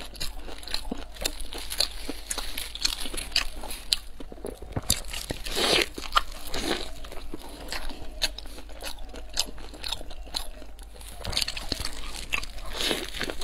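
Close-miked eating: crunching and chewing of a large crisp-crusted stuffed flatbread, with many small crackles and a louder bite a little before six seconds in.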